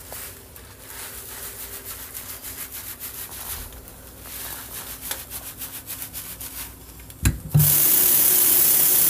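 Gloved hands scrubbing neutralizing shampoo lather through short hair, a run of fast, uneven rubbing strokes. About seven seconds in, a knock, then a tap comes on and water runs steadily, much louder than the scrubbing.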